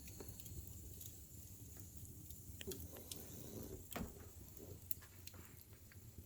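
French bulldog's faint snoring breaths, with a few small clicks and snuffles over a low hum.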